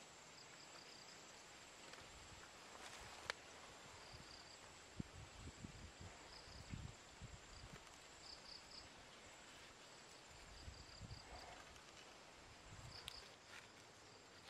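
Faint outdoor ambience near silence: insects chirping in short high bursts every second or so, with soft low knocks and rustles as a knife works a wooden stick, and one sharp click about three seconds in.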